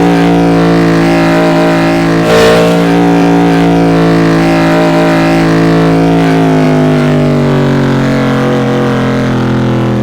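Car engine sound effect running with a steady, even note, a brief rasp about two seconds in, then the revs falling gradually from about six seconds on.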